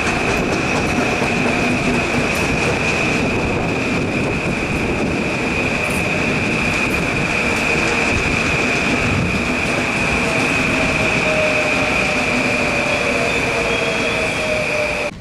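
A Metro-North electric commuter train running past at speed, with a steady rumble and a continuous high-pitched whine or squeal. In the second half a fainter lower tone slides slowly down in pitch.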